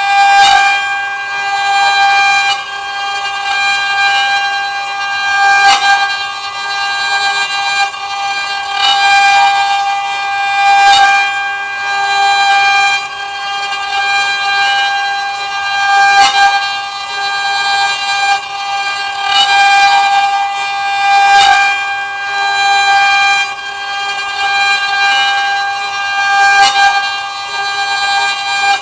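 CNC wood-carving router's spindle running with a steady high whine while it cuts wood. The loudness rises and falls every couple of seconds as the cutter moves through the work, with a few sharp ticks.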